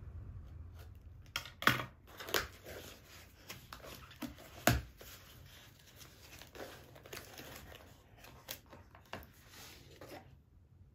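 Cardboard shipping box being opened by hand: flaps pulled back and a boxed product drawn out, with rustling and crinkling cardboard and a few sharp knocks, the loudest about five seconds in. The handling stops shortly before the end.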